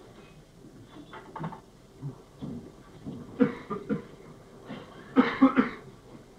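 A person coughing: two short bouts of three or four coughs each, about three and a half seconds in and again about five seconds in, the second bout louder.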